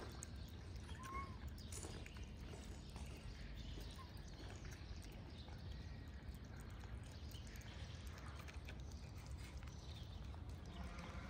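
Stray cats eating wet food close to the microphone: soft, irregular chewing and smacking clicks over a low, steady outdoor rumble.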